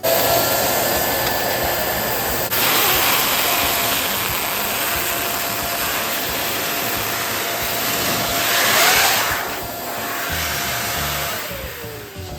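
Electric balloon pump blowing air into a balloon: it starts suddenly, runs steadily with a faint whine, then winds down near the end with a falling whine as it is switched off.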